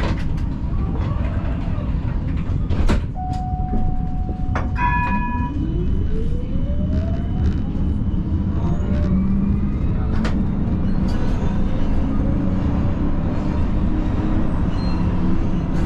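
Siemens Combino tram pulling away from a standstill: its traction drive gives a whine that rises smoothly in pitch over about four seconds, over a steady low rumble in the cab. Just before it moves there are two short electronic beeps, and a few sharp clicks come through the run.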